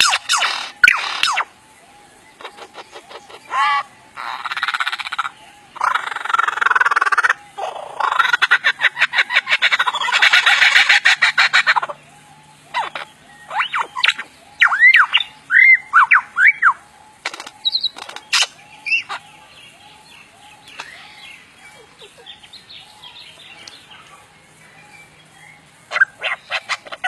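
A lyrebird running through its mimicry: rapid clicking rattles and harsh noisy bursts, then a series of looping whistled notes that swoop up and down, followed by softer chattering.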